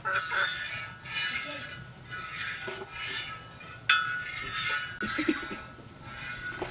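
Metal utensil scraping and clinking against a cooking pan in strokes about once a second, with one sharper clink about four seconds in.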